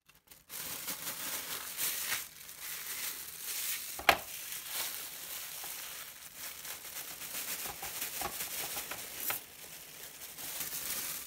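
A plastic bag of small glass beads crinkling as it is handled and poured into a tin can, the beads rattling down onto steel wool. A single sharp click about four seconds in.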